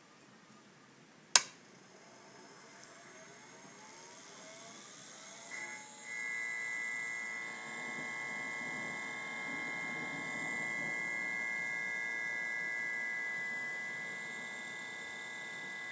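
A sharp click, then a whir that rises in pitch for a few seconds as the homemade laser's electronics power up. It settles into a steady electrical hum with a high-pitched whine.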